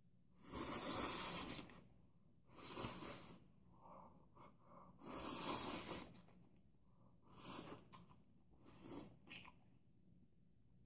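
A person slurping ramen noodles off a bowl: three long, airy slurps of about a second each, then a few shorter, fainter ones near the end.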